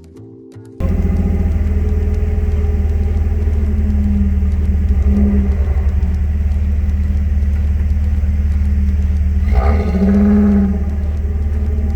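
Off-road 4x4's engine running steadily, with brief rises in pitch around four to five seconds in and again near ten seconds as it is revved.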